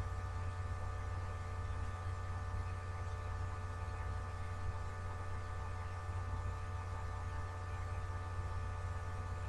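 Steady electrical mains hum with a faint even hiss and a few fainter steady higher tones, unchanging throughout; no other distinct sound.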